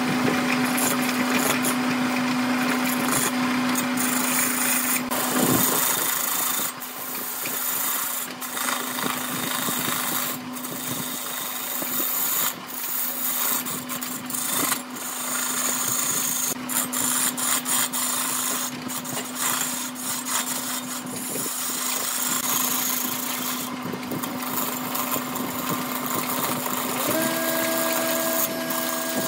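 Wood lathe running with a steady hum while a hand-held gouge cuts into a spinning epoxy resin and bamboo root blank, the cutting hiss rising and falling with each pass. A second, higher hum comes in near the end.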